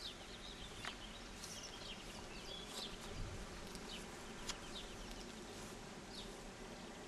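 Quiet outdoor background: faint insect buzzing with a few short, high bird chirps and scattered soft clicks.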